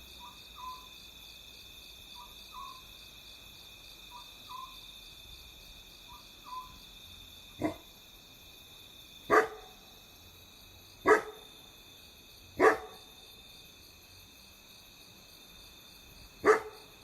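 Water deer giving loud, hoarse barks, five in all, about one every one and a half to two seconds from halfway through, over a steady high-pitched trilling of night insects. Before the barks, a faint soft two-note call repeats every two seconds or so.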